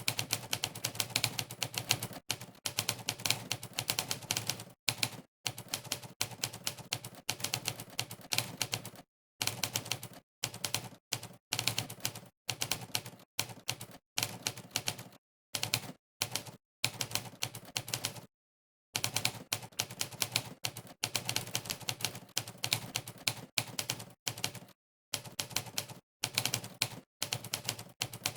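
Typewriter key-strike sound effect from the monkeytype typing-test site, one sharp clack per key pressed. It comes in fast runs of several clacks a second, broken by short pauses of dead silence.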